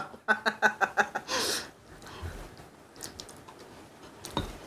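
A woman laughing in quick short pulses, breaking into a breathy gasp about a second and a half in. Then quiet eating sounds with a few light clicks of utensils on dishes.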